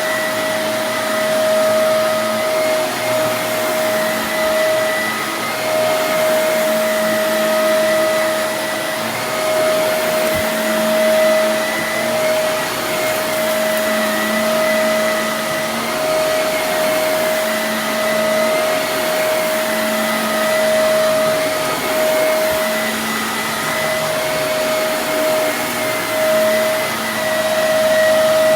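Vacuum cleaner running steadily: a constant high motor whine over a rush of air, with small swells in loudness.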